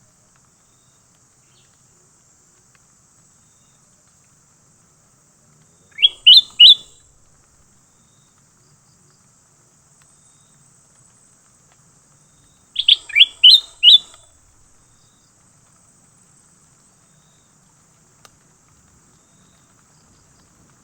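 A songbird calling in two short phrases of quick rising whistled notes, three notes about six seconds in and five notes about thirteen seconds in, with quiet between.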